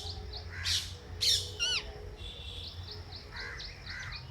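Parrots calling: two loud, harsh screeches in the first second and a half, then a quick falling run of whistled notes and a steady string of short, high chirps.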